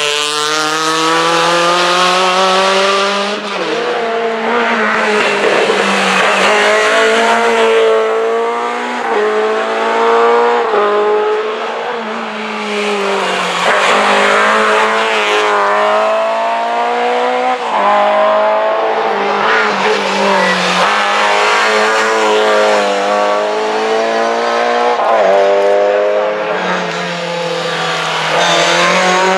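Rally cars, a Honda Civic and then Lada saloons, accelerating hard past on a tarmac stage, the engine note climbing in pitch and dropping back at each gear change, over and over as the cars pass in turn.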